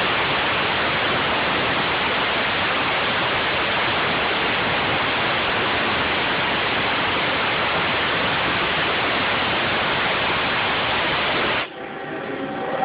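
Flood coolant spraying inside a Haas CNC mill: a steady rushing hiss like a waterfall that cuts off abruptly near the end.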